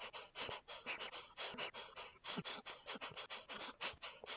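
A person's short breaths, cut from between spoken sentences and strung back to back, each a brief hiss of air, about five a second.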